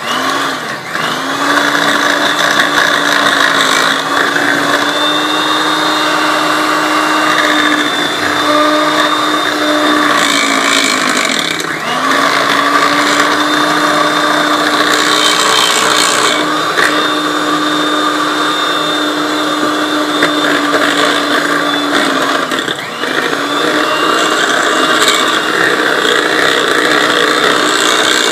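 Electric mixer running steadily, beating eggs into creamed butter and sugar for cupcake batter. Its motor hum dips briefly and picks back up about a third of the way through and again about three quarters of the way through.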